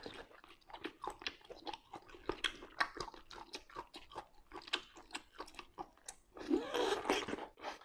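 Close-up chewing and biting of a cooked giant octopus tentacle: a string of quick wet smacks and crunchy clicks. A short vocal sound from the eater comes a little before the end.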